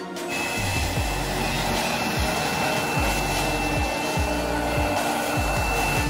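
Silvercrest cordless handheld wet-and-dry vacuum cleaner running with a steady rushing noise and a high whine, sucking up spilled liquid. It comes on abruptly just after the start.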